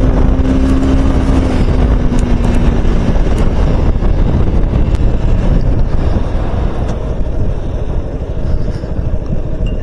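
A vehicle moving at speed: steady wind rush and rumble on the microphone, with a steady engine hum through the first three seconds.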